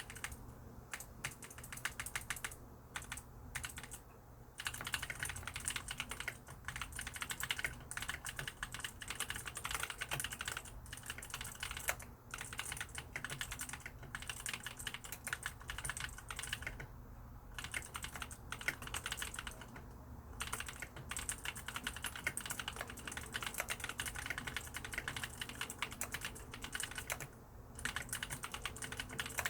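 Mechanical keyboard with lubricated blue clicky switches being typed on: a fast, continuous stream of crisp clicking keystrokes, broken by a few short pauses.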